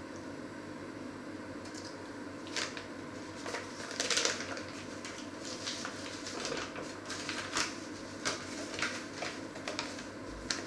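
Paper bag rustling and crinkling in short irregular bursts as it is handled and opened, the loudest crinkle about four seconds in.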